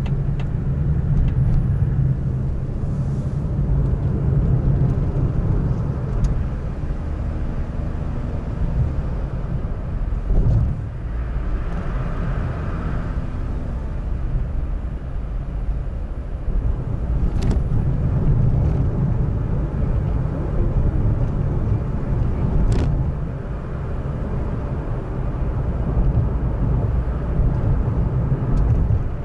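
Road and drivetrain rumble inside a moving Honda N-Box's cabin, with a few sharp clicks from inside the car. The clicks are the kind of interior noise (異音) that was traced to a part under the seat.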